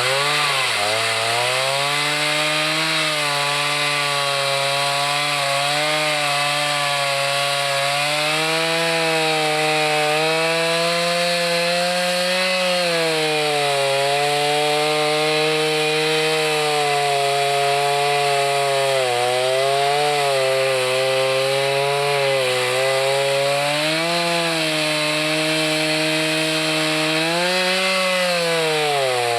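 Chainsaw running continuously while cutting wood; its engine pitch sags under load and picks back up several times, with the deepest dips about a second in, near the middle, and near the end.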